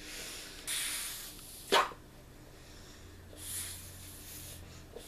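A person breathing in and blowing air into a rubber whoopee cushion to inflate it, with a brief loud burst of breath about two seconds in.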